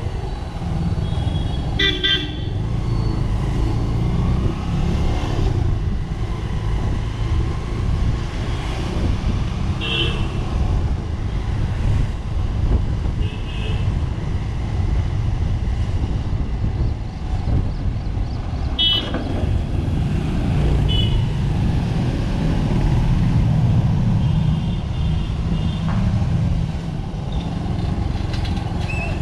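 Road traffic heard from a moving vehicle: a steady low rumble throughout, with about six short vehicle horn toots spread across it.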